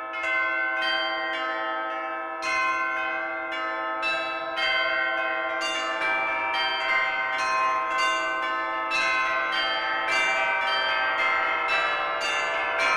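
Bells ringing in a run of strikes, each ringing on under the next; the strikes come faster after about four seconds.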